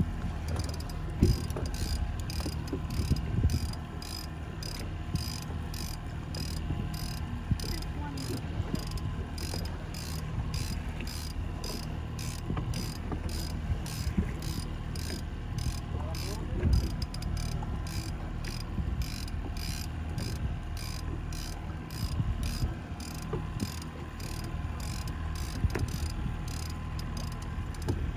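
Fishing reel clicking steadily, about two to three clicks a second, as a hooked salmon is reeled in, over the steady hum of the boat's motor.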